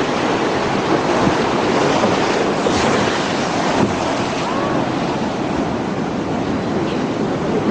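Rough, choppy sea surging and breaking around a pier's pilings, with strong wind buffeting the microphone: a steady, loud rush of water and wind.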